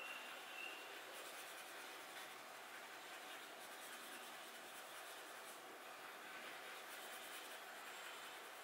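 Blue colouring pencil scratching faintly on paper as it shades in an area of a drawing.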